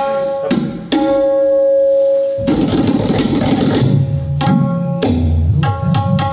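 Tabla played to imitate a train. It opens with ringing, pitched strokes on the right-hand drum, one left to ring for over a second. About halfway through comes a fast roll of strokes, and near the end deep bass strokes on the left-hand drum shift up and down in pitch.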